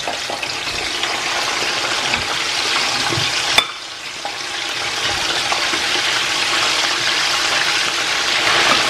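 Chicken pieces, already cooked in spiced stock, sizzling and bubbling as they fry in hot oil in a frying pan. A single sharp click comes about a third of the way in, after which the sizzling drops and builds back up.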